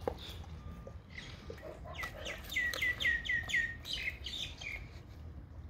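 A bird singing a quick run of about seven chirps, each sliding down in pitch, about two seconds in, followed by a few more scattered notes.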